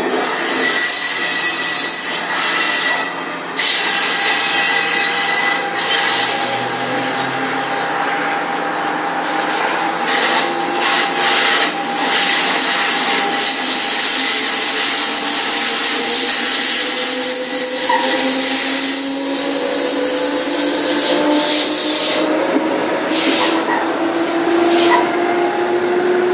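ALP-46A electric locomotive's traction motors whining, several tones rising slowly in pitch through the second half as the train picks up speed. Heard from the coach right behind the locomotive, over a loud rushing hiss and scattered knocks and rattles.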